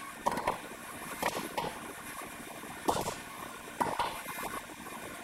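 Popcorn kernels popping one at a time in the kettle of a 4-ounce Paragon popcorn machine, the sharp pops spaced about a second apart as popping slows near the end of a batch, over a faint steady hiss.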